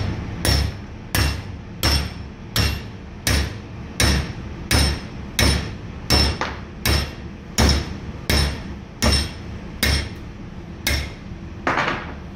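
Steel round stock being hammered cold over the jaws of a bench vise to bend it to a right angle. Steady hammer blows come about three every two seconds, each with a short metallic ring, and stop shortly before the end.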